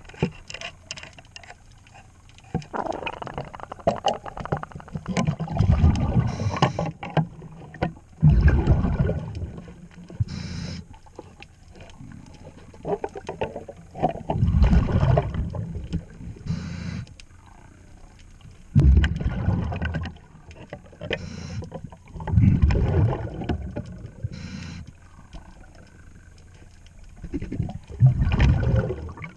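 A diver breathing underwater through a regulator: a loud burst of exhaled bubbles every few seconds, with a short, faint hiss of inhalation between them.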